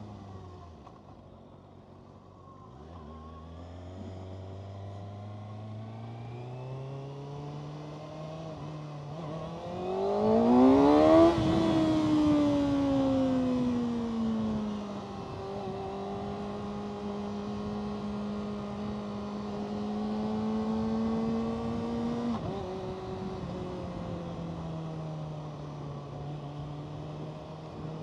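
Kawasaki Ninja ZX-6R 636's inline-four engine under way. It runs low, pulls up gradually, then revs hard to its loudest about eleven seconds in. It winds down over a few seconds, holds a steady cruise, and drops abruptly in pitch a few seconds before the end.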